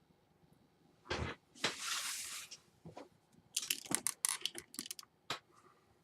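Keystrokes on a Dell Inspiron 11 laptop's newly replaced keyboard: a quick run of about eight sharp key clicks in the second half, as the keys are tested to see whether they work. Before them come a single thump and a short rustle.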